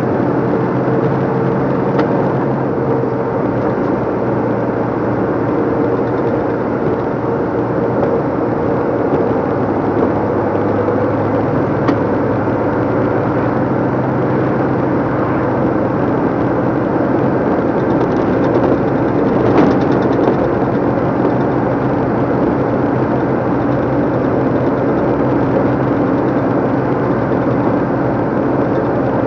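Inside the cab of a 2014 DAF LF55 220 lorry: its diesel engine running steadily at cruise, with tyre and road noise. There is a short louder thump about two-thirds of the way through.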